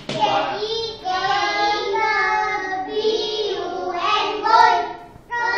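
A group of young children chanting together in a sing-song voice, spelling out a word in Malay. The chant comes in held, sung phrases with short breaks about a second in and near the end.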